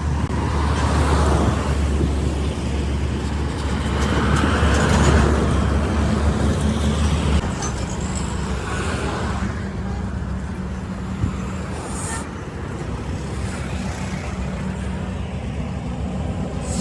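Road traffic: motor vehicles passing, over a steady low engine hum that changes about seven seconds in.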